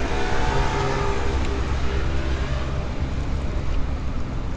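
Road traffic on a city street: a motor vehicle running by with a steady low rumble and an engine hum that fades over the first couple of seconds.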